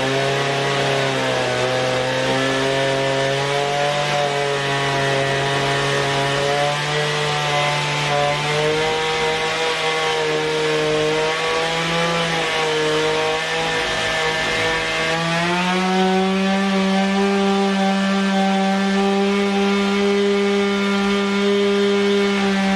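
Gasoline chainsaw cutting through the logs of a log cabin wall. Its engine pitch wavers under load, then rises about two-thirds of the way through and holds steady at a higher speed.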